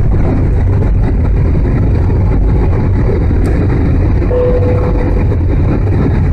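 Airliner's jet engines heard from inside the cabin during the climb just after takeoff: a loud, steady, deep noise. A short steady tone sounds for about a second, a little after four seconds in.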